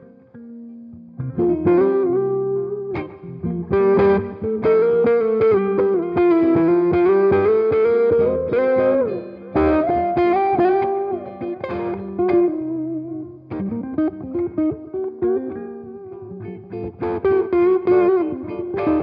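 Electric guitar, a 1980 Greco EG-500 Les Paul-style with its original Maxon humbucking pickups, played through a Headstrong Royal Reverb amp. A lead line of single notes and short phrases with string bends and vibrato starts about a second in.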